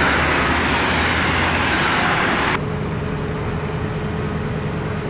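Steady machine hum with a loud rushing hiss of air over it; the hiss cuts off suddenly about two and a half seconds in, leaving the hum running.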